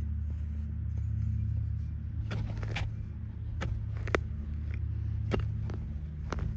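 A steady low engine-like hum, like a motor vehicle running nearby. From about two seconds in it is overlaid by a scattered run of sharp clicks and taps, about eight or nine in all.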